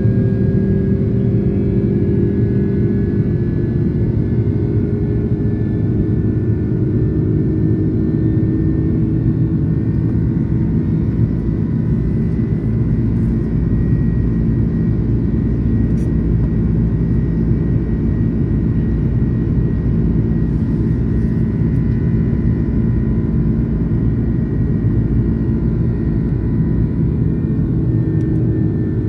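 Airbus A330-300 cabin noise in the climb after takeoff, heard inside by the wing: the steady low rumble of its turbofan engines and the airflow, with a few steady whining tones over it.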